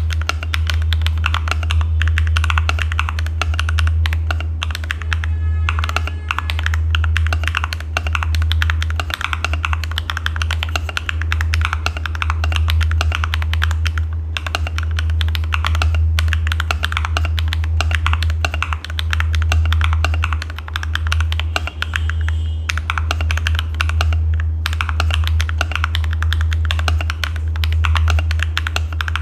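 Continuous fast typing on an Akko ACR59 HHKB-layout mechanical keyboard with stock HMX Hydra switches: a dense run of keystroke clacks with a few brief pauses. A steady low hum runs underneath.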